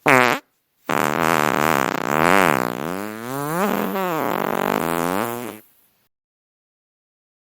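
Fart sound effects: a short fart falling in pitch, then, about a second in, a long drawn-out fart of nearly five seconds whose pitch wavers up and down.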